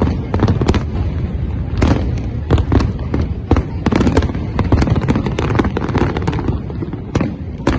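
Fireworks display: a rapid, irregular barrage of aerial shell bursts, several bangs a second over a continuous low rumble.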